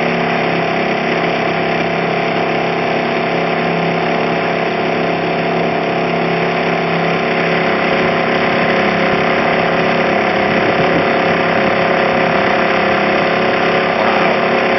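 A boat's engine running steadily, heard from on board: a loud, even drone that holds the same pitch throughout.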